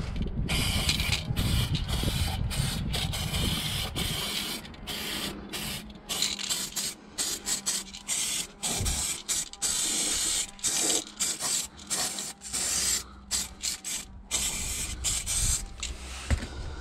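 Aerosol can of anti-corrosion lacquer spraying onto a rusty car suspension arm, hissing. It runs as one long spray over the first few seconds, then as many short bursts with brief stops in between.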